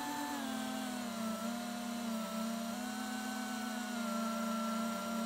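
Mini FPV quadcopter's brushless motors and propellers humming steadily, heard from its onboard camera, the pitch shifting a little up and down as it flies.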